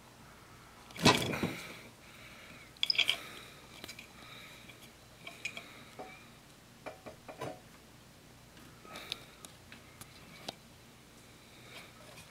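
Allen wrench worked in a rust-seized set screw on a Gryphon C-40 band saw's pulley: scattered light metal clicks and scrapes, with louder knocks about one and three seconds in.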